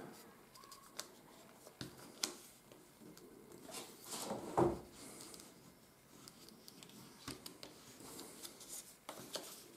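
Sheet of coated paper handled and creased: soft rustles and crinkles as it is pressed, then a small metal tool scraping along the folds against the wooden tabletop, with one louder crackle about halfway through.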